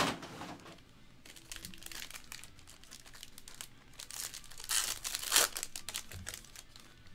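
Silver foil wrapper of a sealed trading-card pack crinkling as it is handled and torn open, with the loudest crackles about five seconds in.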